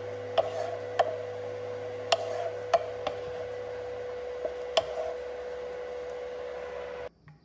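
Wooden spatula knocking and scraping against a pan while stiff choux dough is stirred and cooked, about six sharp knocks, over the steady hum of the electric cooktop. Everything cuts off suddenly near the end.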